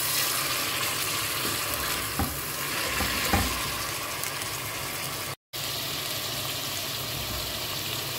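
Raw chicken pieces sizzling in hot oil in a pot, stirred with a silicone spatula that knocks against the pot a few times near the middle. After a short break in the sound, a steady hiss continues.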